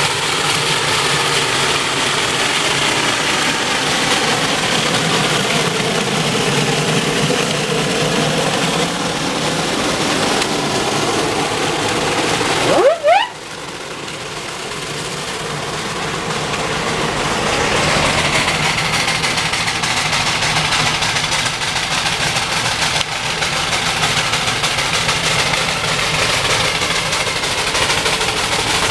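Steam traction engines running under load, led by a Burrell showman's road locomotive hauling a heavy trailer, with rapid, repeated exhaust beats. About halfway through there is a short rising squeal and a sudden break in the sound.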